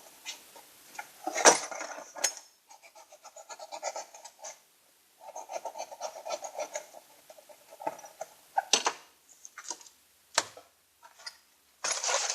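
Metal clinking and rapid clicking from hand tools at work, with a few sharper knocks.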